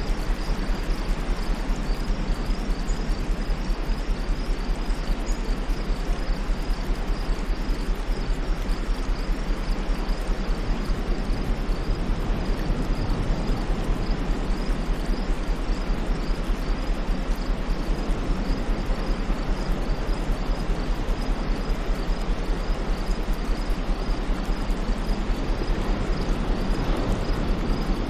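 Steady white noise over a low hum, with a faint high-pitched chirping repeating evenly throughout.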